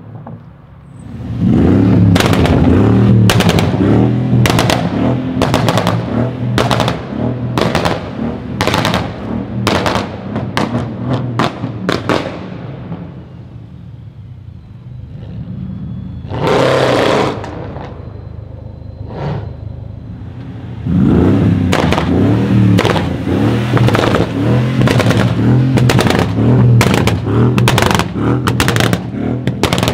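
Tuned Mercedes-Benz E500 V8 BiTurbo with a stage 3 pops-and-bangs tune, accelerating hard, its exhaust firing rapid runs of loud cracks and bangs over the engine. Two such runs, the first about ten seconds long, the second from about two-thirds of the way in, with a quieter stretch and a short rev between.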